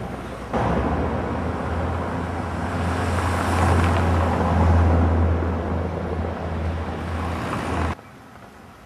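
Eurocopter EC135 twin-turbine rescue helicopter running on the ground: a loud steady rush of turbine and rotor noise over a low hum. It jumps up sharply about half a second in, swells towards the middle and cuts off abruptly near the end.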